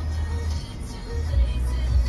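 Music with deep, held bass notes that break off and come back.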